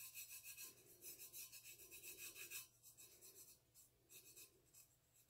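Faint, quick rubbing strokes of a bare fingertip working rust-effect paint onto the metal side of a stainless steel tumbler. The strokes thin out in the second half.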